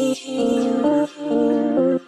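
Intro music: a slow melody of held notes in short phrases, with no drums.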